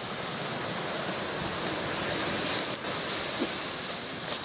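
Surf washing ashore: a steady rush of breaking waves.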